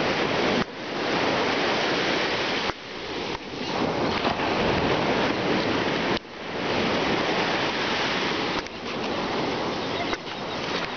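Loud, continuous rushing noise of wind and ocean surf. The level drops sharply several times and builds back up over about a second each time.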